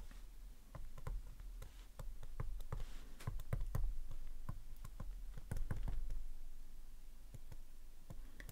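Digital pen tapping and scraping on a tablet screen during handwriting: a run of light, irregular clicks and taps, several a second.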